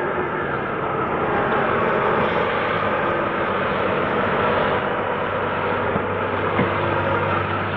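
A car running close by, a steady engine noise with no break.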